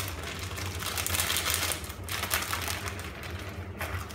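The plastic inner bag of a cornflour box crinkles and rustles as cornflour is shaken out of it into a bowl: a dense run of small crackles over a steady low hum.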